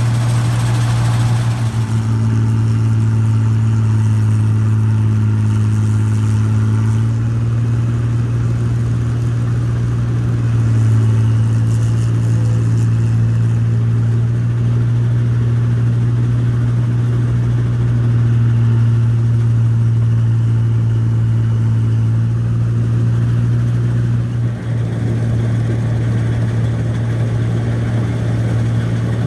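New Holland Clayson 1545-S combine harvester running at a steady low drone, with a brief hiss in the first couple of seconds and a short dip about 24 seconds in.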